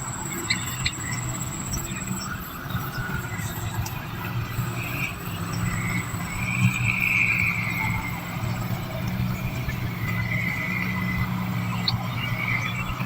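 Nestlings in a nest calling with drawn-out high squeals, the longest and loudest about six seconds in and another near ten seconds, over a steady low hum.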